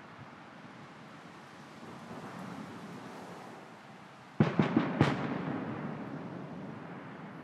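Fireworks going off: a quick run of four or five sharp bangs about four and a half seconds in, followed by a rumbling echo that dies away.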